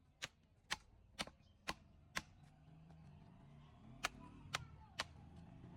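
Sharp knocks of a hand tool striking, about two a second: five in a row, a pause of nearly two seconds, then three more.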